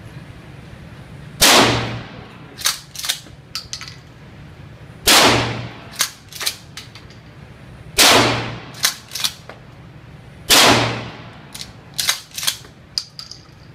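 Remington 870 12-gauge pump-action shotgun fired four times, a blast about every two and a half to three seconds, each dying away in a short echo. Between the shots come quick clacks of the slide being pumped back and forward to chamber the next shell, and a fifth shot goes off right at the end.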